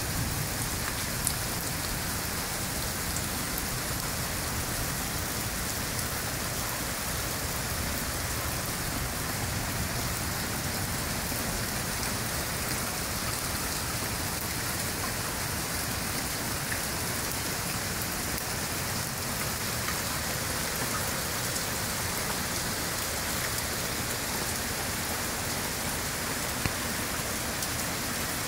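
Heavy rain falling steadily on leaves, mulch and the ground, an even unbroken wash of sound, with a couple of sharp ticks of close drops, about a second in and near the end.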